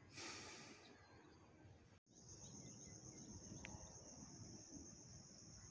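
Faint outdoor field ambience. After a cut about two seconds in, a steady high-pitched insect trill sets in and holds, with a short rush of hiss near the start.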